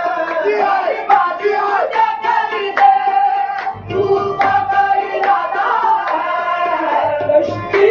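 Live qawwali music: a male lead voice sings long, gliding melismatic lines over harmonium, with tabla strokes and rhythmic hand claps.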